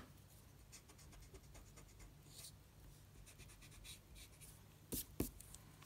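Wooden pencil scratching faintly on drawing paper in short strokes, with two light knocks about five seconds in.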